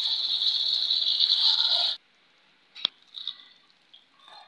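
Sauce-coated fried chicken sizzling in a pan as it is stirred with a silicone spatula. The steady hiss cuts off suddenly about halfway through. Near quiet follows, with one sharp click.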